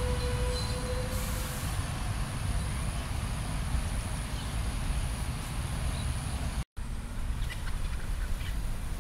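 Steady low rumble of road traffic, with a steady vehicle whine that stops about a second in. The sound breaks off for an instant about two-thirds through, then the rumble goes on.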